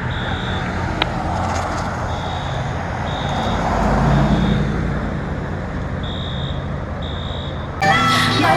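Building fire alarm horn sounding in the three-beep temporal pattern: three high beeps about a second apart, then a pause, repeating. Underneath, the steady idle of fire apparatus engines swells briefly near the middle. Music cuts in near the end.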